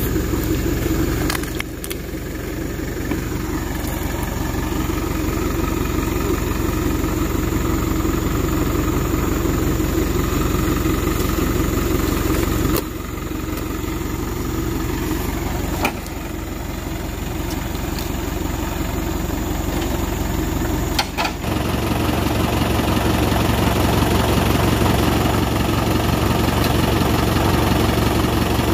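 Small dump truck's engine idling steadily, with a few abrupt shifts in its level and tone.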